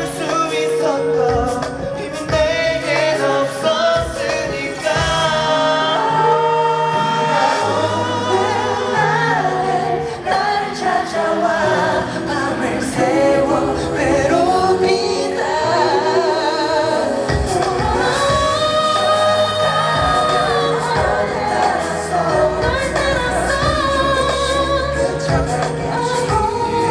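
A male singer singing live into a handheld microphone over amplified backing music.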